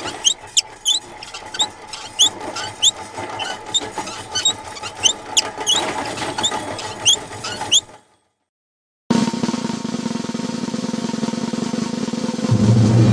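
A cartoon soundtrack. For about eight seconds there is a run of short, high, squeaky chirps, roughly two a second. After a second of silence, a steady snare drum roll starts and grows louder near the end.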